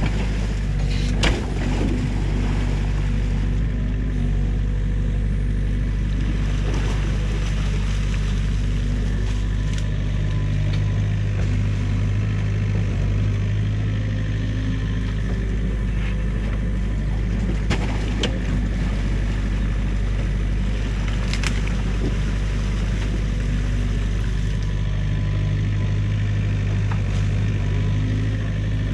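New Holland mini excavator's diesel engine running steadily as it works, with a few short sharp knocks from the machine's bucket and arm.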